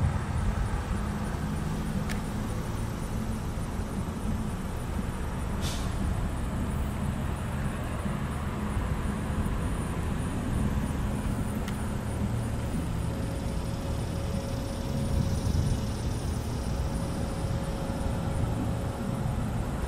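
Steady low rumble of vehicles at a railroad crossing, with no sharp events standing out.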